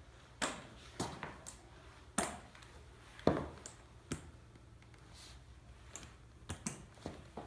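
Crutch tips and a shoe knocking on a hard wooden floor: about ten irregular sharp taps, the loudest about three seconds in, with a lull of a couple of seconds before three quick knocks near the end.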